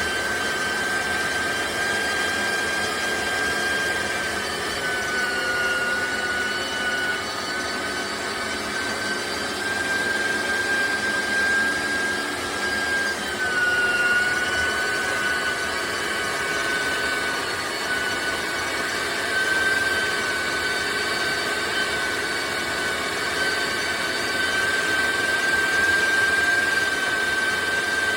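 SVKLHY electric meat grinder running steadily with a high motor whine that dips slightly in pitch now and then.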